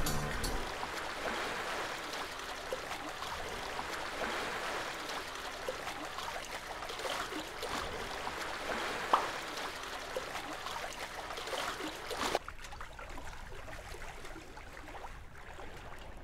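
Water rushing and splashing along a sailing boat's hull under way, with scattered small splashes. About twelve seconds in it cuts off sharply to a quieter, duller wash.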